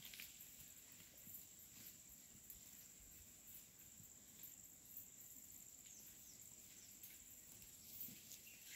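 Faint forest ambience: a steady, high-pitched insect drone, with scattered soft ticks and a few low thuds of someone walking over the forest floor.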